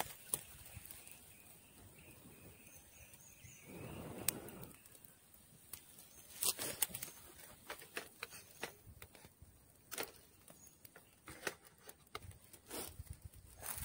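Faint scattered clicks and small crackles from cooking over a small wood campfire, with a short rustle about four seconds in and denser clicking later as the food on the stone griddle is turned by hand.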